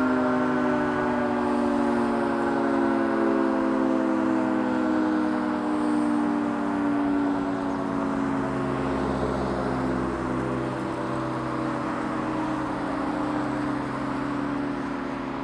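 Outdoor emergency warning siren holding one steady wail that slowly falls in pitch and gets gradually quieter.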